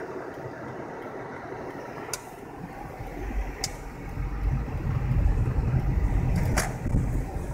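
Steady road and cabin noise of a car being driven. From about three seconds in, a heavy low rumble with a few sharp clicks comes in as the hand-held camera knocks and rubs against the steering wheel.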